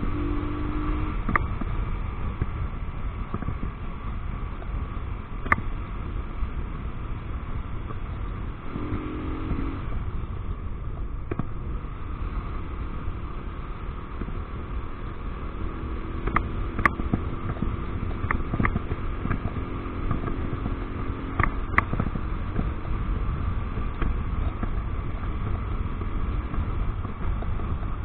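Romet ADV motorcycle riding at town speed, heard from its bike-mounted camera: steady wind and road rumble, with the engine's note coming and going. A few sharp clicks are scattered through it, most of them in a cluster about two-thirds of the way in.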